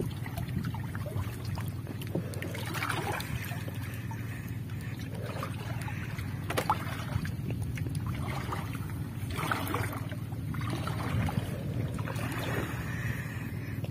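Seawater sloshing and splashing around wading legs and a scoop net being worked through shallow water, in uneven surges every second or two over a steady low rumble.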